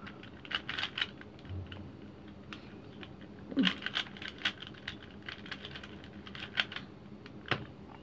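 Stickerless 3x3 Rubik's cube being turned by hand: quick runs of light plastic clicks as the layers snap round, in three short flurries through a move sequence.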